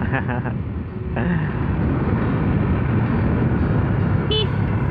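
Steady wind rush on the microphone of a riding motorcycle, with road and engine noise underneath. A short pitched sound comes in briefly near the end.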